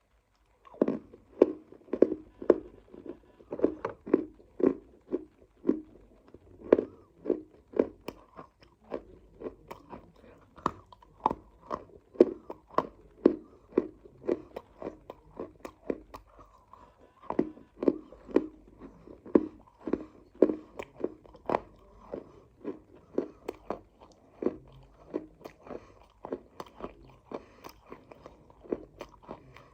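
A person biting and chewing crunchy dry clay (matti) close to the microphone, with sharp crunches about twice a second that start about a second in.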